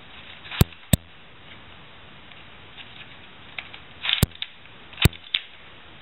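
Plastic clicks and clacks of a Latch Pyraminx twisty puzzle being turned by hand. There are four sharp clicks: two close together less than a second in, and two more about four and five seconds in. Softer ticks and a brief rattle come between the last ones.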